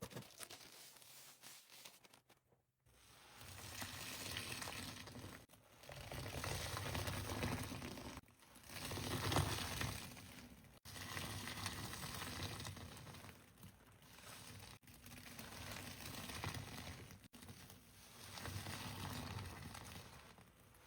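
A soft, powdery paste squishy being squeezed and kneaded by hand, giving crackling, squelching noise in repeated swells of about two seconds each, with a few sudden breaks.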